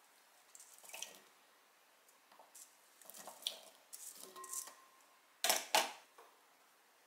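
Diced sweet potato cubes tumbling from a metal mesh strainer into a rice cooker's inner pot of rice and water, with light clatter and scraping of the strainer. Two sharp knocks, close together, about five and a half seconds in.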